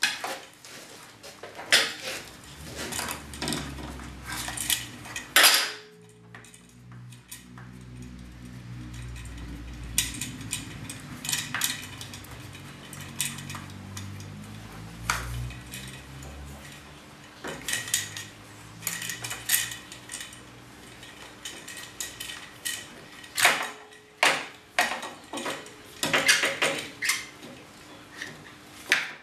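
Repeated clicks, clinks and clatter of small metal parts and hand tools on a metal workbench, from handling and wiring a hoist's plastic pendant control box. There is a low rumble through the middle stretch and a dense run of clatter near the end.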